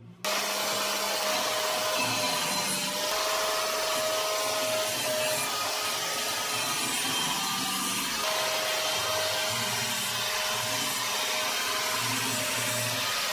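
Angle grinder with a thin cut-off disc cutting into the rusty steel blade of an old cleaver clamped in a vise. It starts suddenly right at the beginning and then runs steadily, with the motor's whine over the grinding of disc on steel.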